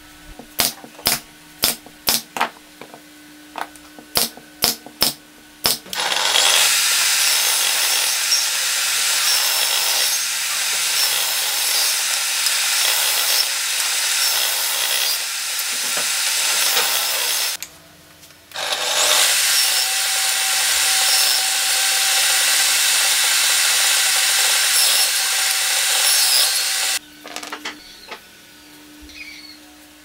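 Table saw running and cutting small pieces of pallet wood, in two long stretches of about ten seconds each with a short break between. Before and after the sawing, a series of sharp knocks and taps.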